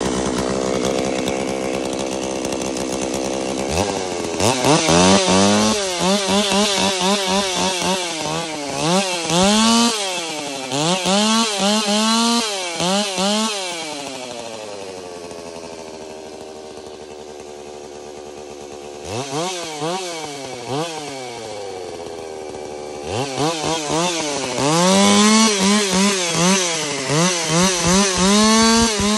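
Holzfforma G660 chainsaw's big two-stroke engine idling, then revved hard in repeated throttle blips, the pitch rising and falling about once a second. It settles back to idle about halfway through, takes a couple more blips, and is revved in quick bursts again near the end.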